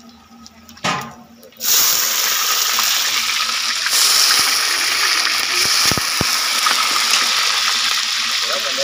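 Food tipped into hot oil with dried red chillies in a large iron wok: about a second and a half in, the oil starts sizzling loudly and keeps up a steady, even hiss.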